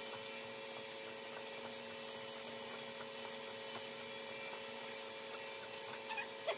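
Steady background hum of a few even tones over faint room hiss, with a couple of faint small clicks near the end.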